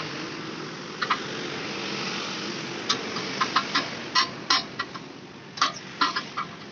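A string of about a dozen short, sharp clicks and knocks at irregular intervals, most of them in the second half, over a steady background hiss.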